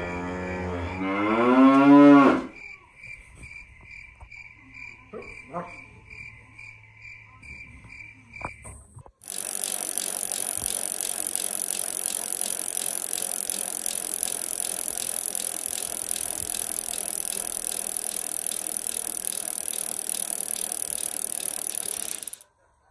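Siberian husky howling in one long call that rises in pitch and gets louder, cutting off about two seconds in. After it comes a steady pulsing high tone for about six seconds, then a loud, dense, steady sound that starts abruptly about nine seconds in and stops abruptly near the end.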